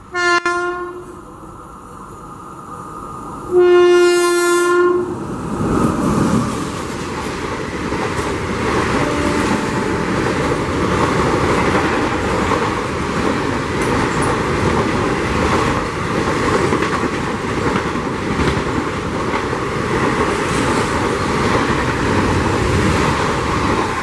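Indian Railways WAP-5 electric locomotive sounding its horn twice, a short toot and then a longer blast about three and a half seconds in. Then the express passes at speed: a steady rush of coaches with the clickety-clack of wheels over rail joints.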